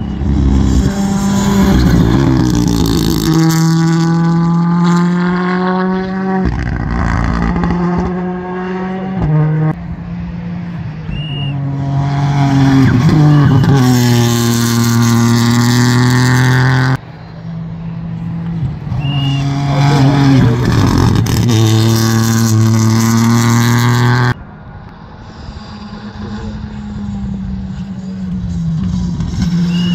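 Rally cars running hard on a special stage, engines climbing in pitch and stepping down at each gear change as they pass. The sound breaks off abruptly twice, cutting from one car's run to the next.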